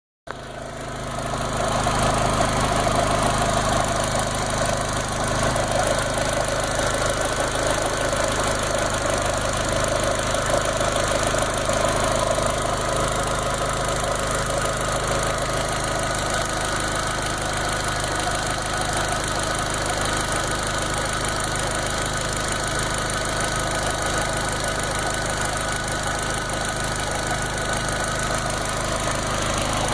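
Volkswagen GTI's 1.8-litre turbocharged four-cylinder engine idling steadily.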